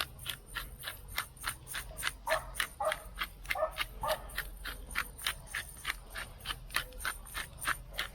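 Hand-twisted pepper mill grinding peppercorns: a steady run of crisp clicks, about four a second.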